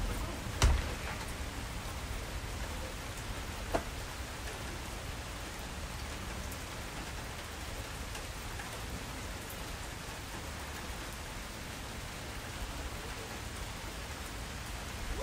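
Steady rain falling in a constant hiss, with a sharp tap about a second in and a fainter one near four seconds.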